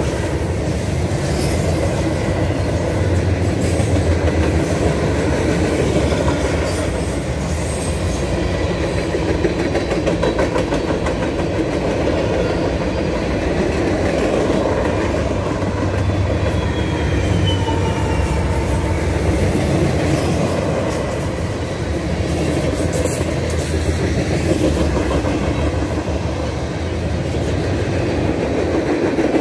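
Freight cars of a passing freight train, covered hoppers and tank cars, rolling by at steady speed: a continuous rumble with a rapid clickety-clack of wheels over rail joints, and a faint wheel squeal about halfway through.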